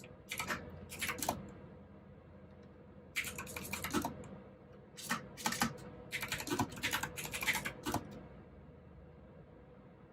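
Typing on a mechanical keyboard with clicky blue switches. It comes in short runs of rapid keystrokes with pauses between, and stops about eight seconds in.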